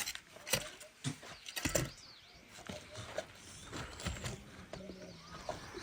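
Hooves clopping at a walk: a few sharp strikes in the first two seconds, then quieter.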